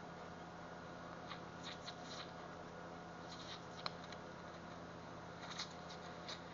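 Faint steady hum of a TIG welding arc brazing Everdur silicon bronze filler into a crack in a Mack exhaust manifold, with three short runs of soft crackles and one sharper click about four seconds in.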